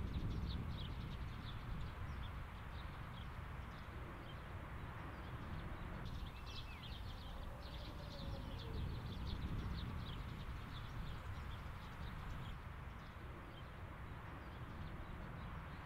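Open-air field ambience: a steady low rumble with many short, high bird chirps scattered through it.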